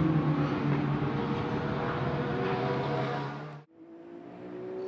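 BMW M4 GT3's twin-turbo 3.0-litre inline-six running as the race car pulls away, its engine note slowly fading. About three and a half seconds in, the sound cuts off abruptly and a fainter, distant engine note starts, its pitch climbing steadily.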